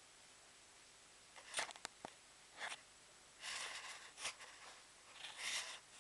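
Handling noise from a handheld camera: a few short rustles and several sharp clicks close to the microphone over a faint steady hiss.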